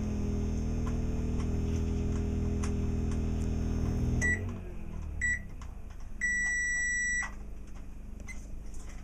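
Microwave oven running with a steady hum, which winds down about four seconds in as the heating cycle ends. It then beeps twice briefly and once long to signal it has finished.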